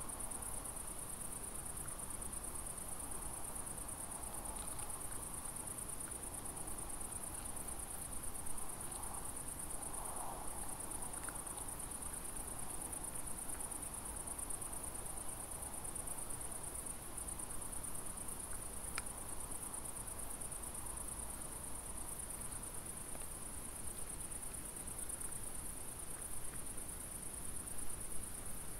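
Crickets chirring without a break, a steady high-pitched trill, with a few faint ticks scattered through it.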